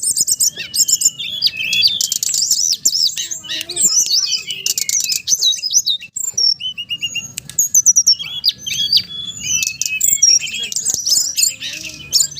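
Brown-chested jungle flycatcher (SRDC, sikatan rimba dada coklat) singing: rapid, overlapping high chirps, trills and whistled glides with no pause, a recording of the kind played as a lure to get a newly caught bird to sing.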